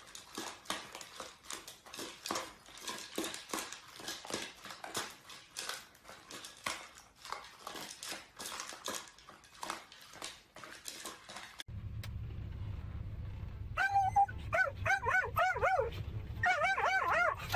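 About 12 seconds of irregular rustling and clicking. Then, over a low steady hum, a dog gives a rapid run of short, high-pitched whimpers and whines, each rising and falling in pitch.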